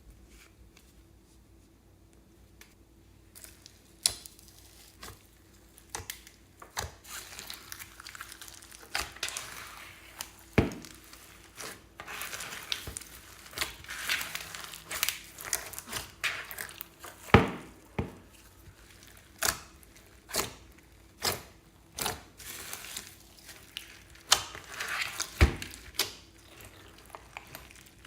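Hand-worked slime and crinkly add-ins: irregular crinkling, crunching and rustling with many sharp clicks and pops, starting about four seconds in.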